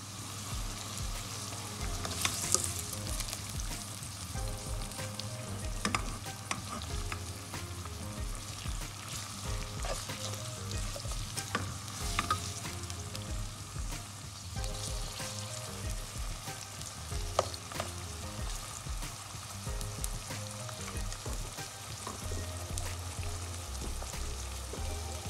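Sliced onions frying in oil in a non-stick wok, sizzling steadily, with a spatula stirring them and knocking against the pan a few times.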